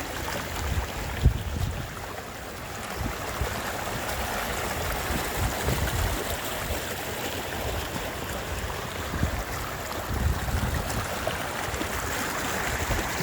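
Floodwater rushing steadily along an overflowing pasture irrigation canal, with occasional low thuds and one sharp knock about a second in.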